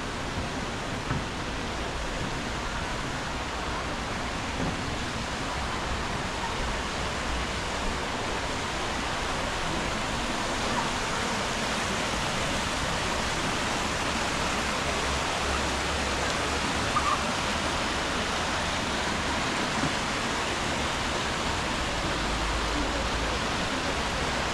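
Shallow stream rushing over rocks and small cascades, a steady even rush of water that grows a little louder in the first half.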